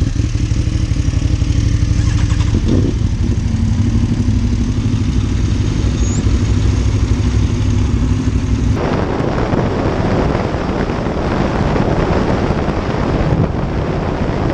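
Aprilia Tuono 1100 Factory's V4 engine with an Akrapovic slip-on exhaust running steadily at low revs as the bike rolls off slowly. About nine seconds in it cuts to riding at speed, where wind rushing over the helmet microphone mixes with the engine.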